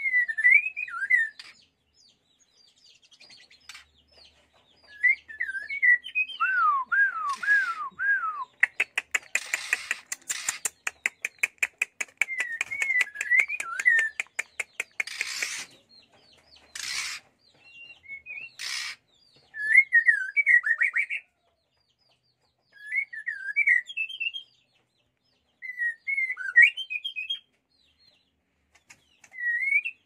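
White-rumped shama (murai batu) singing: short warbled phrases, repeated again and again, with a run of four falling whistles about seven seconds in and a fast rattle just after. A few short harsh rasps come midway.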